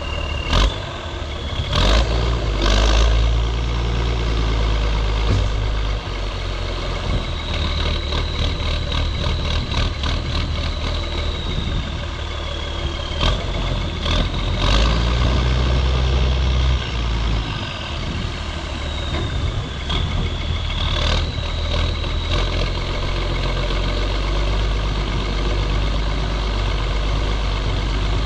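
Ford TW tractor's diesel engine running while driving in the field. Its low drone swells and eases with load, a thin high whistle drifts up and down through the middle, and a few sharp knocks and clunks come through.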